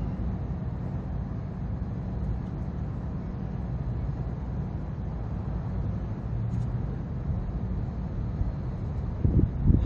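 Steady low outdoor rumble, like distant traffic, with a few louder low bumps near the end.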